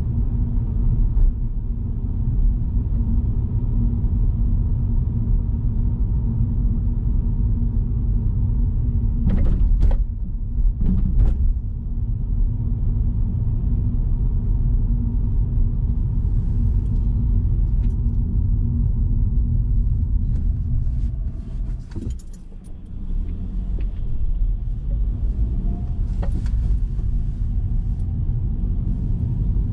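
Car driving at town speed, heard inside the cabin: steady low rumble of engine and tyres on the road. A few short knocks or clicks come around a third of the way in, and again past the middle, where the rumble briefly drops off as the car slows.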